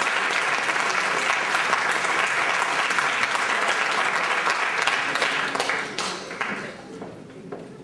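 Audience applauding with dense, steady clapping that dies away about six to seven seconds in.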